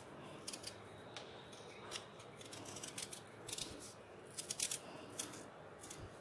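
Small kitchen knife paring the green skin off a strip of watermelon rind, faint irregular cutting and scraping strokes coming in short clusters every second or so.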